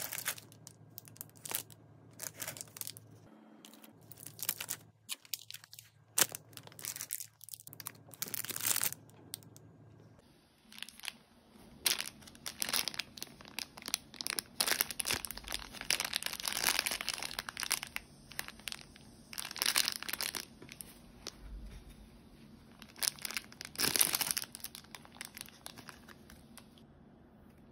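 Crinkly plastic snack packets rustling in short scattered bursts, then, about ten seconds in, the plastic wrapper of a kinako-bo (roasted soybean-flour candy stick) crackling and tearing as it is opened by hand and the stick is pulled out.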